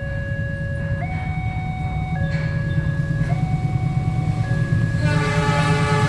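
An Indonesian diesel-electric locomotive rumbles close by while a two-note electronic warning tone alternates, changing note about once a second. About five seconds in, the locomotive's S35 air horn starts to sound, a rich chord of many tones.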